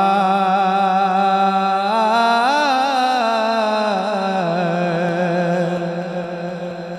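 A male naat reciter singing one long drawn-out note into a microphone, the pitch wavering in ornaments partway through, over a steady low drone.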